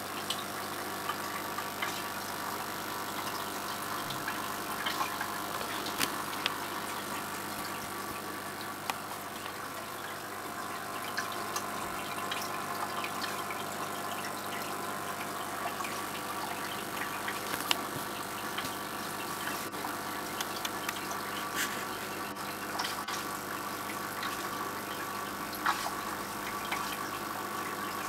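Aquarium filter running: a steady motor hum with water trickling, and scattered small clicks.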